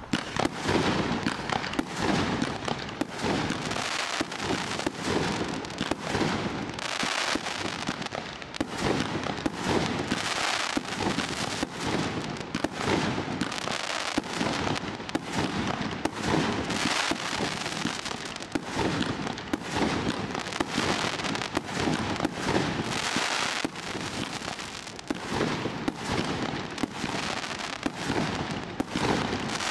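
Galactic Crackle Star, a 145-shot mine and barrage firework cake, firing shot after shot, several a second, with the crackling of its star bursts filling the gaps between shots.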